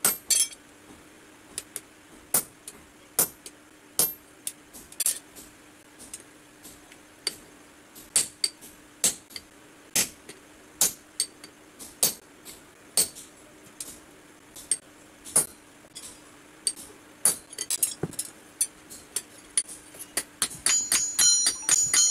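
Hammer striking a red-hot steel adze head on an anvil: sharp metallic blows at an uneven pace, about one or two a second, then a quicker run of lighter ringing taps near the end. This is hand forging of the adze blade.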